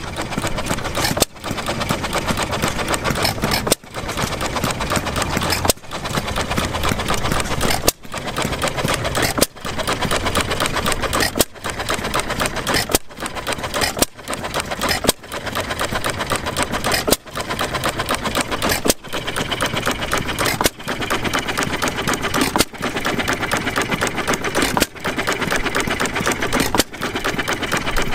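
Small antique Domestic hit-and-miss gas engine running with a rapid, even mechanical clatter that drops off briefly about every two seconds.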